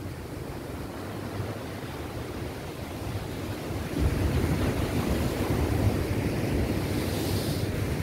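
Atlantic Ocean surf breaking and washing over rocks below a cliff, a steady rushing wash. About halfway through it grows louder and deeper, with wind rumbling on the microphone.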